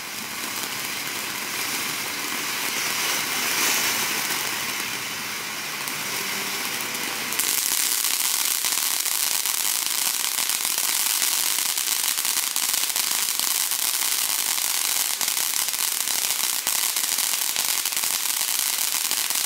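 TNT Broadway Show fountain firework spraying sparks: a continuous hissing spray with fine crackling, which steps up louder about seven and a half seconds in and holds there.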